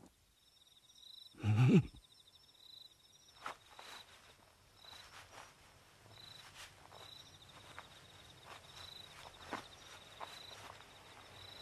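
Night-time insect chirping: a steady high-pitched trill that pulses on and off, with faint scattered clicks. About one and a half seconds in, a single short, loud call drops sharply in pitch.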